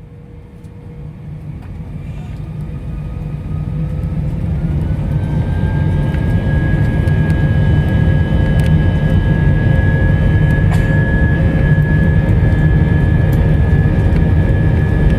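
Airliner jet engines heard from inside the cabin, spooling up to takeoff power: a low rumble swells over the first several seconds as a whine rises in pitch, then both hold steady and loud.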